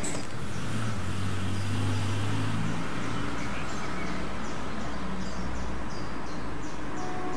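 Outdoor background noise: a low rumble that swells about a second in and fades near the end, under a high chirp repeating about three times a second.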